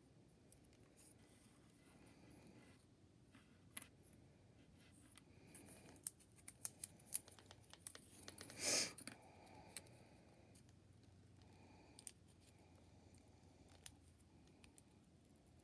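Faint clicks and light taps of small paper-craft pieces being handled and fitted together by hand, with one short, louder rustling scrape a little before nine seconds in.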